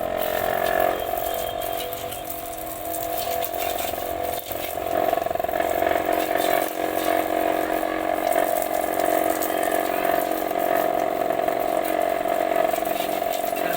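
A 775 DC motor running steadily with a whine and a light rattle.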